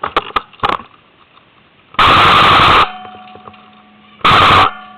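Airsoft gun firing two full-auto bursts close by: the first lasts a little under a second and comes about two seconds in, and a shorter one follows near the end. A few sharp clicks come just before.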